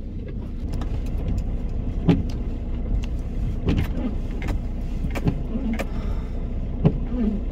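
Inside a van's cab on a snow-covered road: steady engine and tyre rumble, with the windshield wipers sweeping and giving a short knock or squeak about every second.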